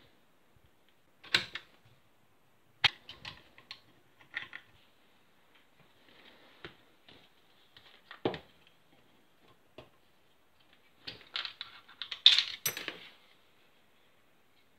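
Parts of an airsoft M4 rifle being handled and set down on a table: scattered clicks and knocks of metal and plastic. A denser run of louder clatter comes about eleven seconds in and lasts about two seconds.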